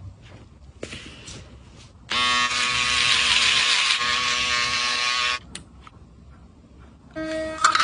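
Small handheld electric shaver buzzing steadily against the upper lip, switching on about two seconds in and cutting off suddenly about three seconds later. Near the end, clicks and a short tone begin.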